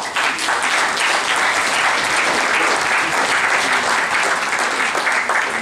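Crowd applauding: loud, dense, steady clapping that starts abruptly and dies down at the very end.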